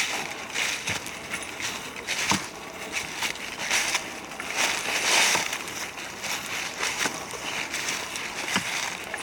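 Footsteps crunching through dry fallen leaves on a forest floor, one step roughly every second, with a few sharp twig snaps or clicks.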